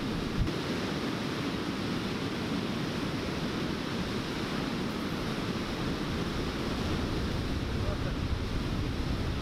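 Steady rush of white water pouring over a low river weir, with wind buffeting the microphone.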